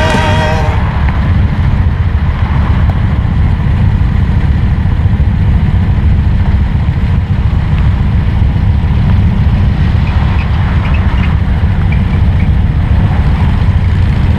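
Motor trikes riding slowly in a group, heard as a loud, steady, low engine rumble; music cuts off about a second in.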